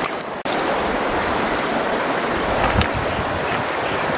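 A fast-flowing muddy river rushing over stones: a steady rush of water, broken by one brief low thump a little after halfway.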